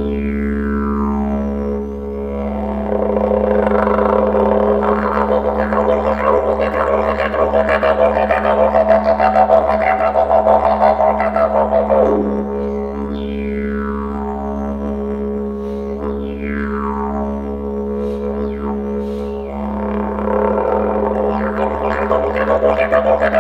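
Didgeridoo drone with a vocalised kookaburra-call imitation played over it: steep falling whoops at the start and twice later on, and long stretches of fast, pulsing cackling laughter, the first running for about nine seconds.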